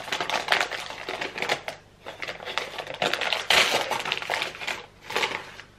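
Christmas wrapping paper being torn and crinkled by hand as a small gift is unwrapped, in several spells of rustling and tearing with short pauses between them.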